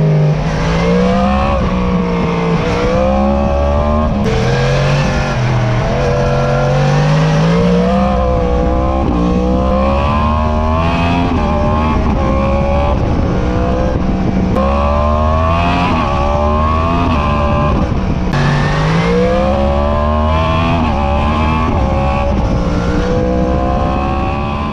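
2020 Yamaha R1's crossplane inline-four on its stock exhaust under way: the engine note climbs and falls again and again as the bike accelerates, shifts and slows, with several sudden drops in pitch at the gear changes.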